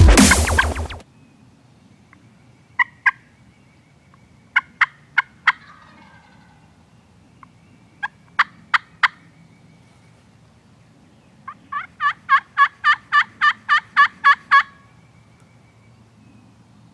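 Background music cuts off about a second in. Then a turkey yelps in short groups of two to four notes, and near the end gives a run of about fourteen yelps at roughly four a second, getting louder.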